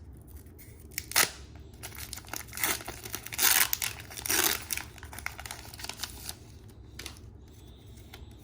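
Foil Pokémon booster pack wrapper being torn open and crinkled: a short rip about a second in, then a longer, louder stretch of tearing and crinkling from about two and a half to four and a half seconds in, followed by light rustles.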